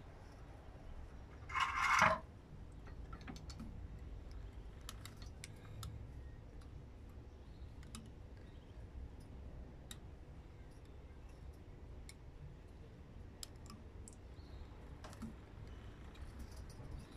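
Hand-cranked coil winding machine laying copper wire onto a transformer bobbin: light, irregular clicks and ticks from the mechanism and wire, with a short loud hiss about two seconds in.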